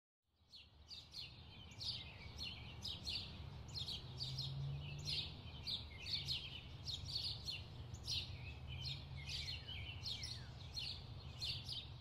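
Many birds chirping and twittering, short calls overlapping densely, over a low steady hum; it fades in during the first second.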